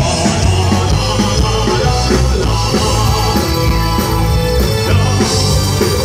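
Live rock band playing through the stage PA: drum kit, electric guitars, bass and keyboard, at a steady loud level.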